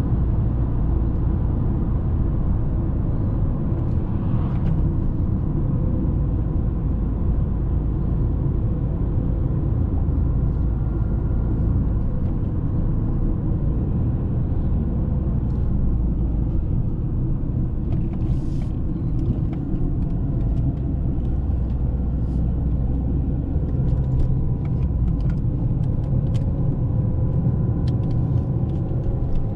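Volvo S40 1.6D's turbodiesel four-cylinder engine and tyre noise as the car is driven, a steady low rumble. There are scattered light clicks in the second half.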